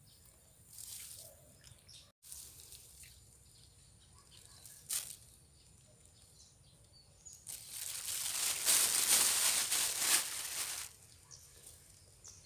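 A rustling, fluttering noise lasting about three seconds, beginning about seven and a half seconds in, with a single sharp click a couple of seconds earlier.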